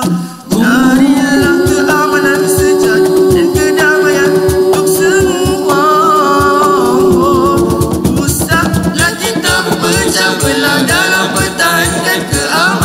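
Nasyid group singing, several voices together, over hand-drum percussion. The music drops out for a moment about half a second in and comes straight back, and a long held note runs under the singing through the first half.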